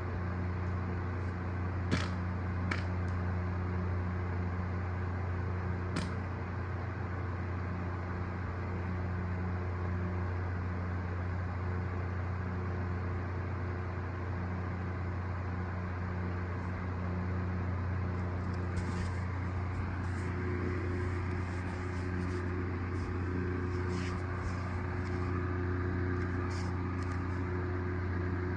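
A steady low machine hum, with a few brief clicks in the first few seconds.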